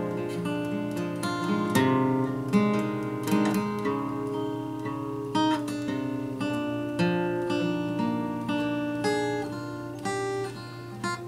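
Solo acoustic guitar playing improvised, with notes and chords struck one after another and left to ring, growing gradually softer toward the end.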